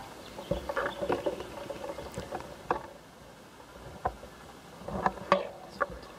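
Irregular rustling, clicks and knocks as the shoulder-mounted camera rig is carried through scrub, with leaves and twigs brushing against it.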